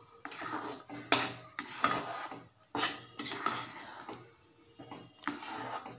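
A spoon and spatula stirring thick semolina halwa as it cooks in ghee in a pan, giving several sharp scrapes and knocks against the pan, about one a second, with a quieter stretch about four seconds in.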